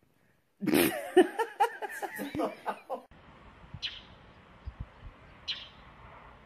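A person laughing in quick bursts for about two and a half seconds, cutting off abruptly. Then a steady low hiss with two short, sharp high-pitched sounds about a second and a half apart.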